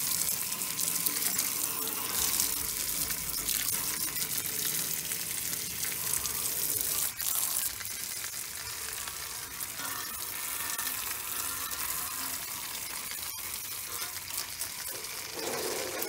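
Garden hose spraying a jet of water onto the fins of a central air conditioner's outdoor condenser coil: a steady hiss of spray and splashing water.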